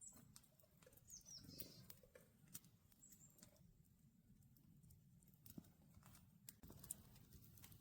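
Near silence, broken by faint scattered clicks and a few faint, short, high chirps of small winter birds about a second in and again near three seconds.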